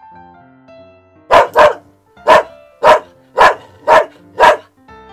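A dog barking seven times: a quick pair about a second and a half in, then five more about half a second apart, over background music.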